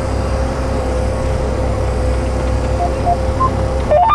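John Deere 8345R tractor's diesel engine running steadily under load: a constant low drone with a steady whine held over it.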